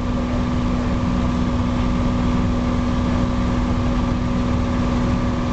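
Cessna 182's piston engine and propeller running steadily in the climb, heard from inside the cockpit as a constant hum over a steady rushing noise.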